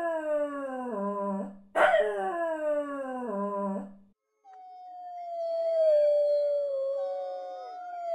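Small dogs howling. Two falling howls about two seconds apart each end in a rough, low break. After a short pause comes one long, steady howl with fainter howls gliding over it.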